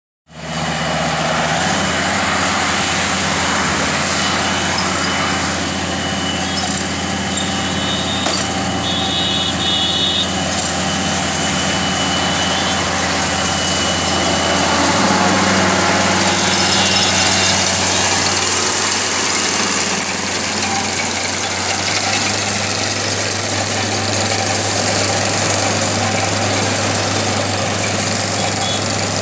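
Kubota SR55 combine harvester's diesel engine running steadily, with a change in the engine note about halfway through.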